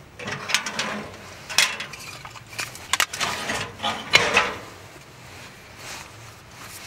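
Cookware and utensils being handled: a run of clinks, knocks and scrapes over the first four and a half seconds, loudest about three and four seconds in, then settling to a quiet background.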